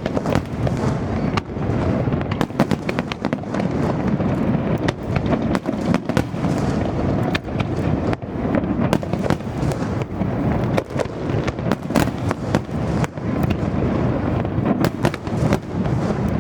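Aerial fireworks display: a dense, continuous barrage of sharp bangs and crackles over a rolling low rumble.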